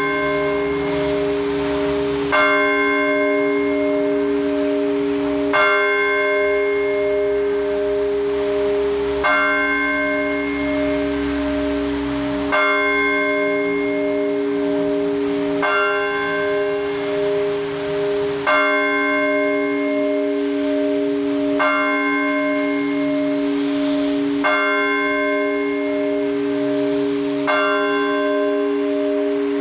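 Russian Orthodox church bells rung by a bell-ringer. Several large bells hum on continuously, while a cluster of smaller bells is struck together about every three seconds, each strike ringing on.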